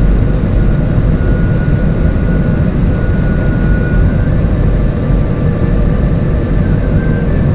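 Airliner cabin noise during the landing approach: a steady, loud rumble of engines and rushing air heard from inside the cabin, with a faint steady whine above it.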